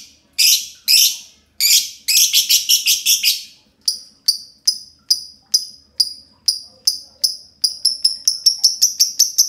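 Two green lovebirds chattering in a long 'ngekek' song of repeated sharp chirps. It opens with harsh, raspy chirps about every half second and a quick cluster about two seconds in. About four seconds in it changes to clearer, higher chirps that come faster and faster into a rapid run near the end.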